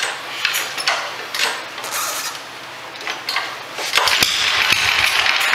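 Tecumseh HS40 single-cylinder engine being pull-started by its recoil starter: several short pulls of the rope, then, about four seconds in, a longer, louder crank with low pulsing that stops near the end, without the engine settling into a run.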